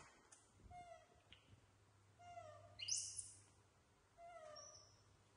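Baby macaques giving faint, short cooing calls that fall in pitch, three of them a second or two apart, with a brief high-pitched noise about three seconds in.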